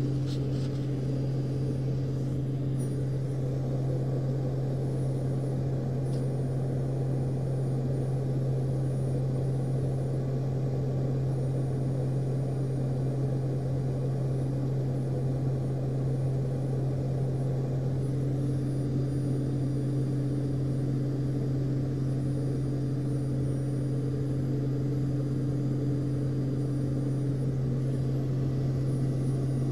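Steady low drone of engine and air-system noise heard inside the cockpit of a U-2 in high-altitude flight. A fainter, higher hum joins about two-thirds of the way through.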